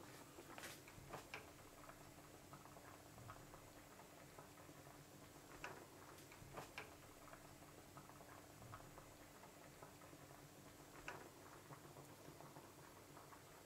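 Faint bubbling and crackling of pasta water at a rolling boil around fettuccine, with a few light clicks scattered through as a wooden spatula stirs in the pan.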